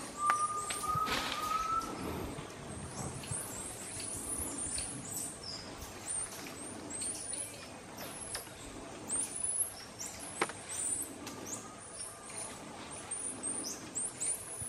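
Bolivian squirrel monkeys (Saimiri boliviensis) calling, many short, very high chirps one after another. A steady, slightly rising whistled note sounds for about a second and a half near the start.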